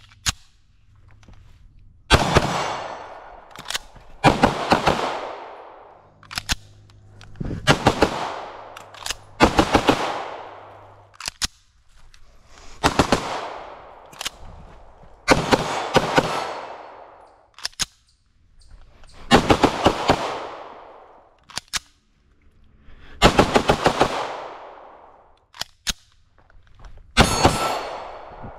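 Pistol fire from a 9mm CZ Shadow 2 Compact with a ported barrel. Shots come singly, in quick doubles and in short strings every second or two, each crack trailing off in a long echo.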